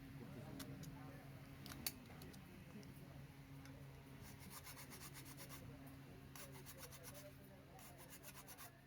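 Faint rubbing and runs of small quick clicks from hand work on a broken umbrella's frame, over a low steady hum.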